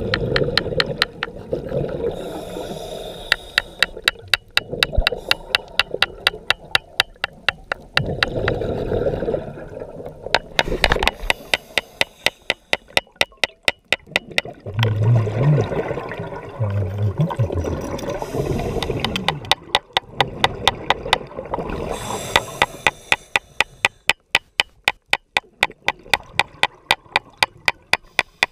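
Underwater scuba diving sounds: a diver's regulator breathing and exhaled bubbles swell and fade every few seconds. A rapid, even run of sharp clicks, about three or four a second, goes through much of it.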